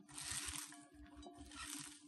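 Hands squeezing and kneading shredded cabbage and carrot in a bowl: crisp rustling and squishing in uneven bursts as the vegetables are crushed.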